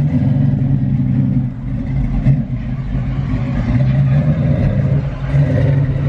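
A car engine running, with a loud, steady low rumble.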